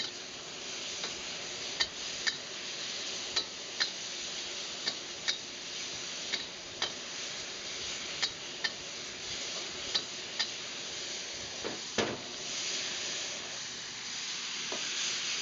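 Chicken and broth sizzling hard in a wok on high heat as the broth boils down, with the stirring utensil clicking and scraping against the wok about once or twice a second.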